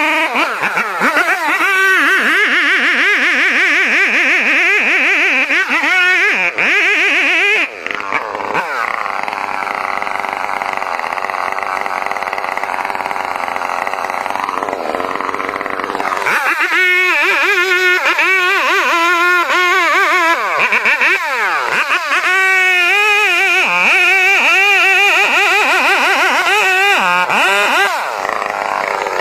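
Two-stroke chainsaw running, revving up and down repeatedly, with a steadier stretch from about eight to sixteen seconds in.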